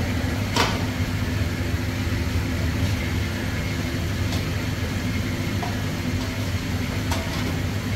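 Steady low drone of commercial kitchen equipment, with a sharp metallic clink about half a second in and a fainter one near the end as a long metal ladle knocks in a large aluminium pot being stirred.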